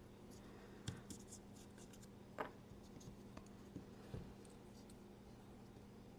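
Faint, scattered clicks and scrapes of a small tool working on a folding knife's parts during disassembly, four or so light ticks spread over a few seconds against a quiet room.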